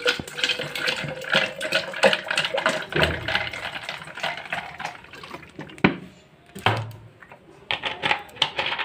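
Soda poured over ice into a glass jug of mango pulp, fizzing and crackling with ice clinking against the glass. After about five seconds the pour stops, and a few separate clinks and knocks follow.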